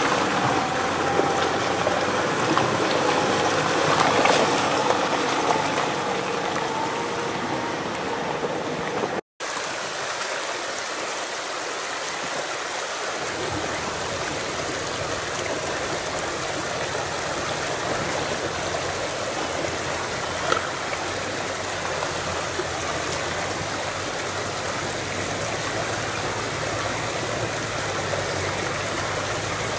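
An off-road SUV's engine running as it pulls away along a muddy track, cut off suddenly about nine seconds in. Then a mountain stream rushing steadily over rocks.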